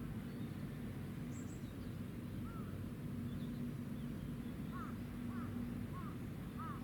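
Steady low hum of the helicopter destroyer Kaga's engines, with birds chirping in short calls over it, several in the second half.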